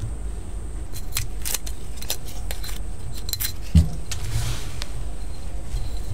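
Scattered light clicks and clinks of glassware and utensils being handled, with a dull thump a little under four seconds in and a brief hiss just after, over a steady low rumble.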